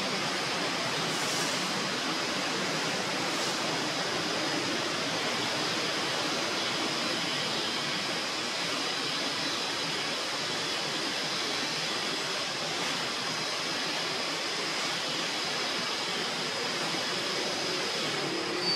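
Steady, even rushing hiss with a faint high whine above it.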